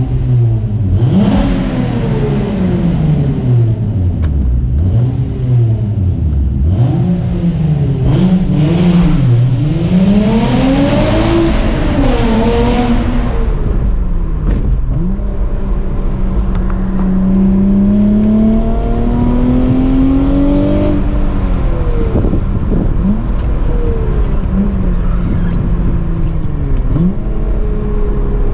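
Acura TL's V6 at full throttle with a cracked exhaust flex pipe, heard from inside the cabin. In a tunnel for the first half, the revs climb and fall several times in quick succession. Then comes one long steady pull that drops back about 21 seconds in, followed by lighter rises and dips.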